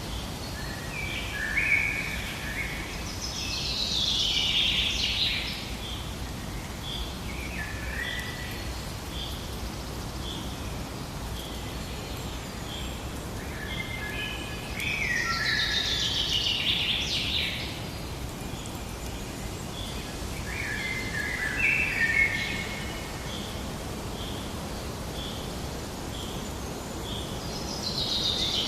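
Songbirds singing, with warbled phrases of a second or two that come every few seconds. Under the song a short high note repeats steadily, about one and a half times a second, over a constant low hiss.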